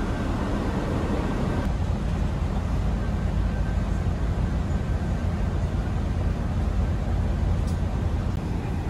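Steady low rumble and hum inside a Cititrans coach's cabin, from the bus's engine and air conditioning running. A faint high tone and some extra noise drop away about two seconds in.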